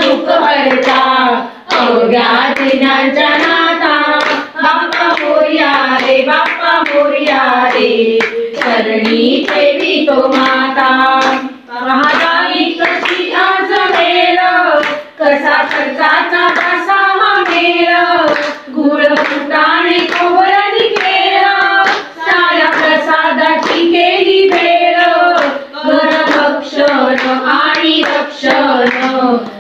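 A group of women singing a Marathi devotional song together, with steady rhythmic hand-clapping keeping the beat.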